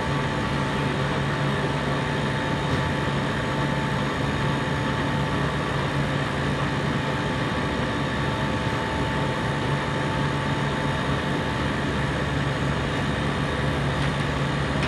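A compressor running steadily: a constant mechanical drone with a low hum and a thin steady whine above it.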